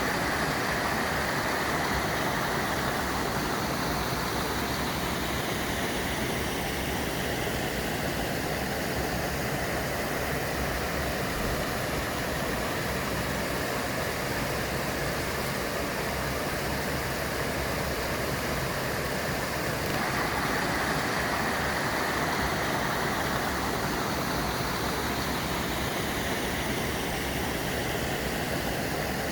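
Small waterfall on a mountain stream: steady rush of falling, flowing water.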